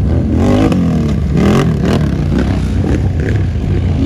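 ATV engine revving, its pitch rising and falling several times over a steady idle.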